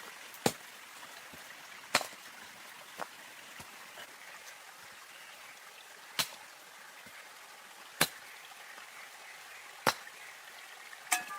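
Wood being chopped with a blade, six sharp strikes at uneven gaps of one to four seconds, over the steady trickle of a stream.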